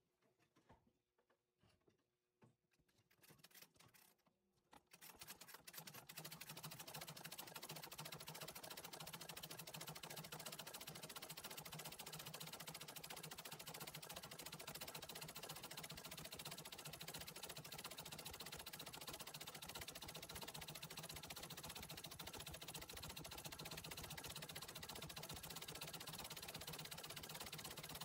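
Antique treadle sewing machine stitching steadily at speed, doing free-motion embroidery, with a fast, even stitching rhythm. It starts about five seconds in, after a few faint clicks.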